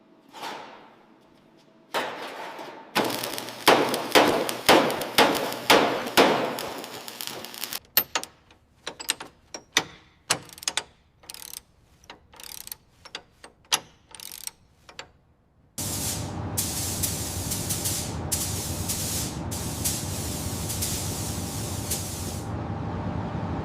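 Workshop bodywork sounds: a quick run of sharp strikes, then scattered clicks and knocks, then a steady hiss lasting several seconds with a few short breaks.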